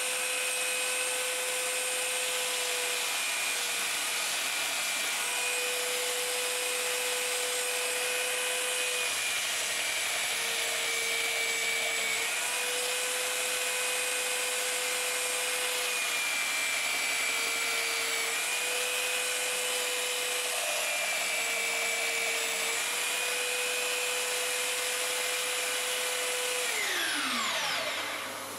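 Parkside PBS 900 C3 belt sander running with a pine board pressed against the belt. The motor's pitch dips a little several times as the wood loads it. Near the end it is switched off and winds down with a falling pitch.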